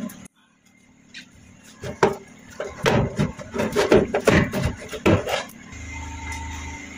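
Metal knocks and clatter of galvanized sheet-metal flue parts being handled and fitted, from about two seconds in until about five and a half; a steady background music layer follows near the end.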